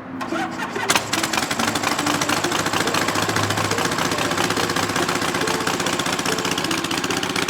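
Fast, steady mechanical rattling, a rapid train of clicks from a motor-driven machine, that starts abruptly.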